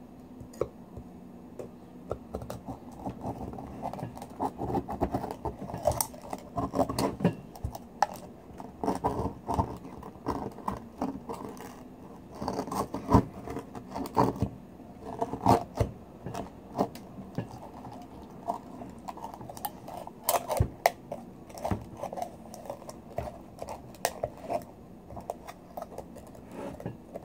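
Serrated knife blade scraping, clicking and knocking irregularly against a pearl oyster's shell as it is pried at to force the shell open.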